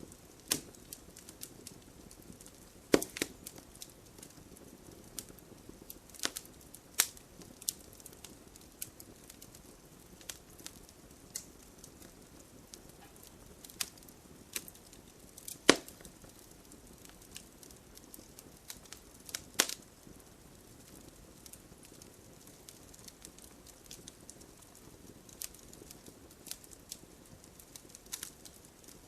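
Wood campfire burning with a steady low hiss and irregular crackling, broken by a few louder sharp pops of the burning logs.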